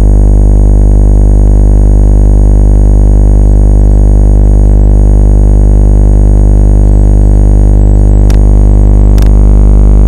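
Electromagnetic field detector turning nearby electromagnetic fields into a loud, steady electric buzz with many overtones. Two brief crackles cut through it near the end.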